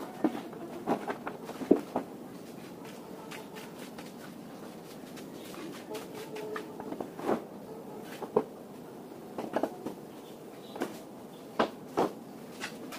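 Stiff plastic sheet being unrolled and stood on edge to form a chick brooder ring: rustles with irregular sharp clicks and knocks.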